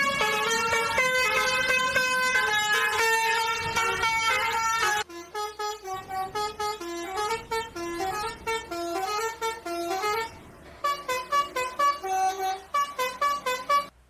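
Bus 'telolet' multi-tone horn playing a tune: about five seconds of long held chords that shift pitch a few times, then a run of short notes stepping up and down. It cuts off suddenly at the end.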